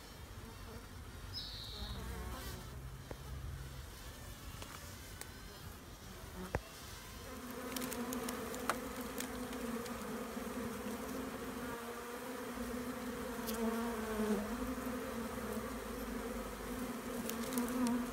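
Swarm of honeybees buzzing: a steady hum that grows louder about seven seconds in.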